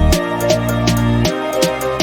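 Background music with a steady beat: sustained bass notes over sharp, evenly spaced percussion hits.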